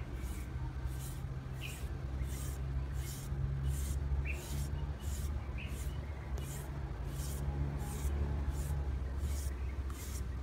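Green papaya being shredded with a hand-held shredding peeler: rasping scrapes about twice a second as the blade is drawn down the fruit. A steady low rumble runs underneath.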